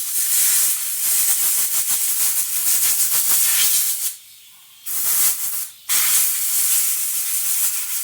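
A pressurized spray hissing in long blasts, stopping briefly about four seconds in and again a little later, as the small engine's air cleaner parts are cleaned out.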